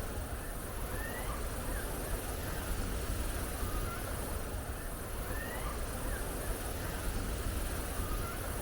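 Steady outdoor background noise with a low rumble, and faint short rising chirps from a small animal, about one a second.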